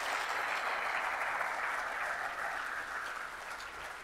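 Audience applauding, the clapping loudest at first and slowly dying down.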